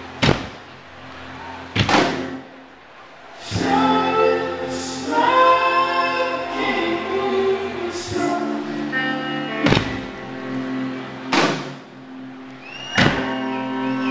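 Live band music with sustained, layered singing and guitar chords. Heavy drum strikes fall about every second and a half.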